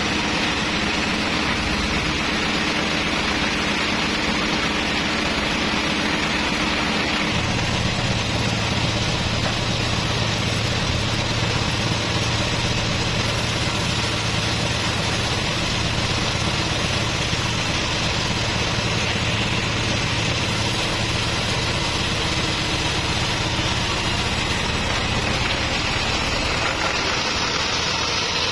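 Sawmill machinery running steadily without cutting, with a constant low hum while a log is loaded onto the carriage. About seven seconds in, the hum drops to a lower pitch.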